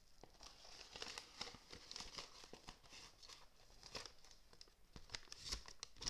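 Plastic packaging crinkling as it is handled, a quick run of small crackles and clicks.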